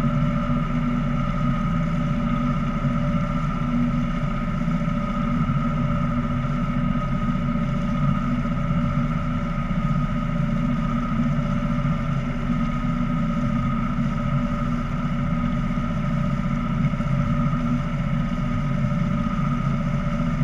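Small motor craft's engine running at a steady cruising speed, a constant drone with a steady higher whine over it and no change in pitch.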